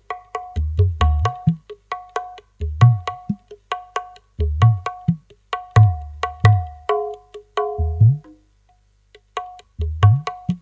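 Dangdut gendang (kendang) drumming through a sound system: sharp, ringing high slaps over deep bass strokes whose pitch bends upward, in a steady rhythm with a short break about eight seconds in.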